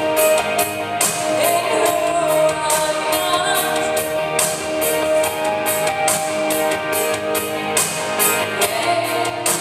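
A live gospel band playing loudly, with long held notes over a steady drum and cymbal beat.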